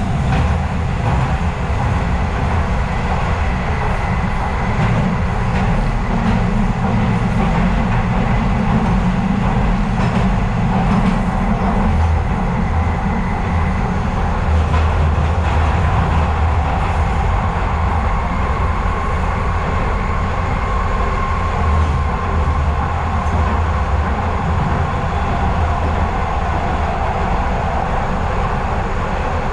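Docklands Light Railway train running steadily on its rails, heard from aboard: an even rumble with a faint high whine that lowers in pitch partway through.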